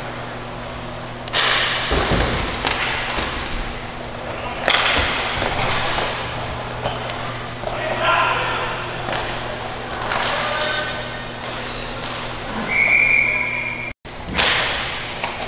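Hockey play on a sport-court rink: sharp knocks of sticks and shots hitting the boards every few seconds, with players shouting, and a referee's whistle blown once for about a second near the end.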